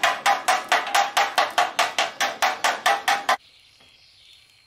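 Rapid, even metallic taps, about six a second, each with a short ring, stopping abruptly about three and a half seconds in. After that only a faint steady hiss remains.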